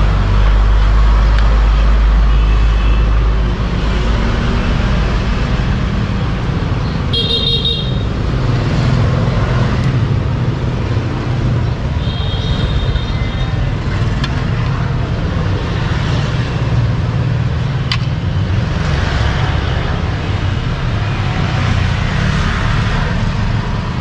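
Steady road traffic rumbling past, with two short vehicle horn toots, one about seven seconds in and another about twelve seconds in.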